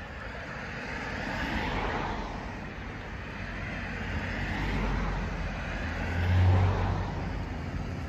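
Cars passing on the road, their tyre and engine noise swelling and fading in turn, with a brief low rumble about six seconds in.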